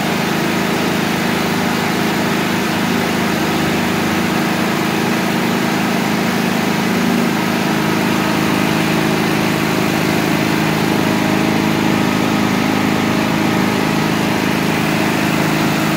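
Einhell BT-PG 5500/1 petrol generator's engine running at a steady speed, warming up shortly after an electric-start cold start.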